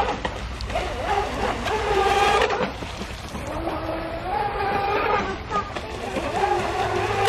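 Motor of a radio-controlled toy speedboat whining as it runs across the water, its pitch rising and falling with the throttle.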